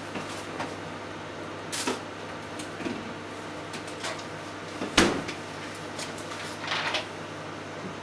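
Daewoo microwave oven running with a steady hum, broken by a few short sharp knocks or pops, the loudest about five seconds in.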